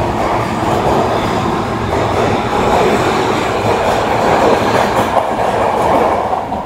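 Osaka Metro 22 series subway train moving along the platform of an underground station, most likely pulling out: a loud, steady rumble of wheels on rail and running gear.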